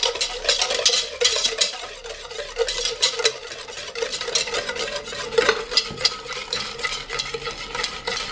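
A wire balloon whisk beating an egg with sugar in a stainless steel bowl, its wires clattering and scraping quickly against the metal sides, over a steady ring from the bowl.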